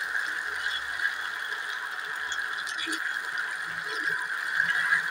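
A metal spoon stirs and scrapes sabudana khichdi around a stainless steel pan, with faint scattered clicks. Under it runs a steady hiss of the pan cooking on the stove.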